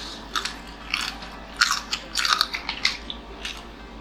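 Close-miked chewing and biting of food, with irregular crunchy, wet clicks several times a second.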